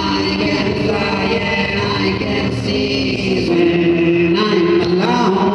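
Live vocal looping music: several layers of a man's wordless voice, held tones stacked under changing mouth-made vocal sounds, played loud over a PA while a new line is voiced into a handheld microphone.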